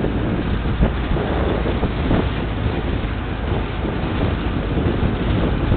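Pickup truck driving over a cobbled street, heard from its open cargo bed: a steady rumble of tyres and engine with irregular knocks, and wind buffeting the microphone.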